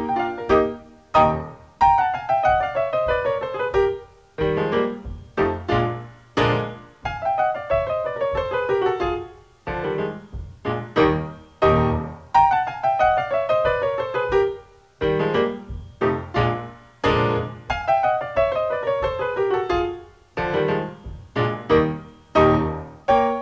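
Piano music: loud struck chords alternating with long descending runs of notes, the pattern coming round about every five seconds, four times.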